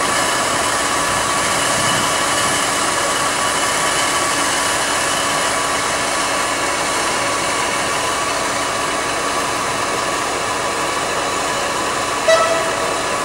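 Freight train of flat wagons rolling slowly past: a steady rolling noise of wheels on rails with a few faint held tones. A brief pitched note sounds near the end.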